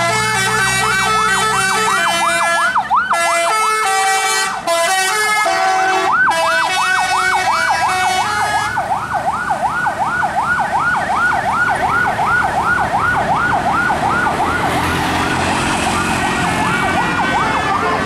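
A tour bus's telolet horn, an electric multi-tone horn. It plays a fast siren-like warble, about three sweeps a second, with a tune of changing horn notes over it for the first half. After that the warble carries on alone.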